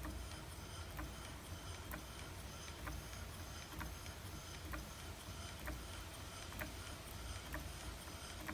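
Stuart model beam engine (1-inch bore, 2-inch stroke) running slowly and smoothly, its moving parts giving a light click about once a second over a steady low hum.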